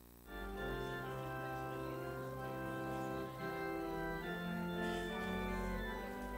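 Organ playing slow, held chords.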